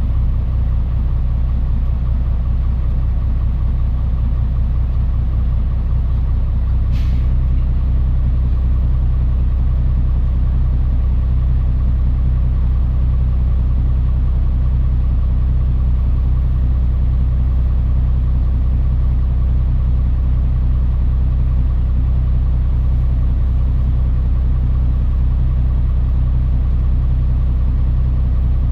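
Diesel engine of a Mitsubishi Fuso Aerostar KC-MP717 city bus running steadily, heard from inside the passenger cabin. A single sharp click comes about seven seconds in, after which the engine note changes slightly.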